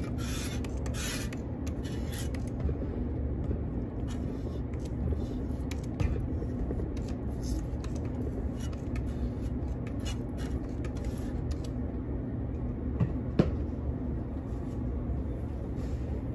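Trigger spray bottle squirting leak-detector solution onto refrigerant valve fittings: several quick hissing squirts in the first couple of seconds, then fainter ones now and then. A steady low machine hum runs underneath, with a couple of light knocks near the end.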